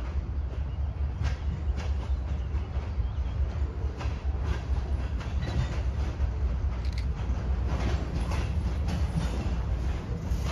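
Slow freight train approaching with a tank car leading: a steady low rumble with wheel clicks and clanks on the rails, more frequent from about halfway through.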